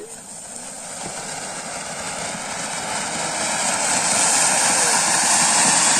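Ground fountain firework spraying sparks: a steady rushing hiss that grows louder over the first few seconds and then holds.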